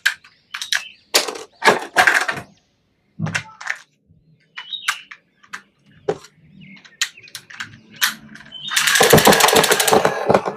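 Hands handling toy packaging and plastic: scattered sharp clicks and crackles, then a loud rasping, ripping burst about nine seconds in, as of packaging being torn open.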